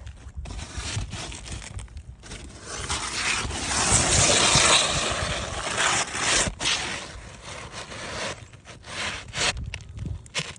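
Roof shingles scraping and rustling against each other as a shingle is worked in and out under the lifted shingles above, with a long loud scrape in the middle and shorter scrapes after it.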